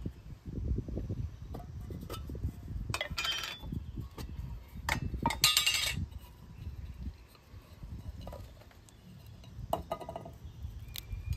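Small metal char tins and their lids clinking and tapping together as they are handled on a wooden board. A few sharp clinks come about three seconds in, a longer rattle of clinks around five to six seconds, and another clink near the end.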